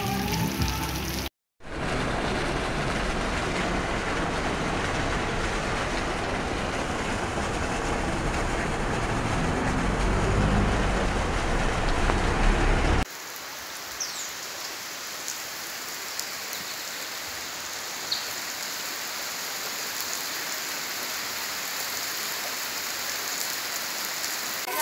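Heavy rain, a steady hiss of a downpour on the ground, in separate recordings cut together. The loud first stretch, with water streaming off a roof edge, drops out briefly just over a second in. About 13 seconds in it cuts suddenly to a quieter, steady rainfall.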